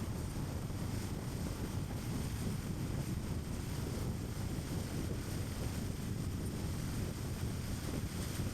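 Steady road noise of a car on the move: a low, even tyre rumble mixed with wind.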